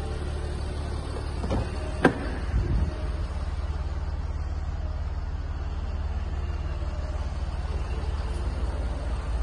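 Jaguar XF's 3.0 V6 diesel engine idling with a steady low rumble. A sharp click comes about two seconds in, with a few softer knocks around it.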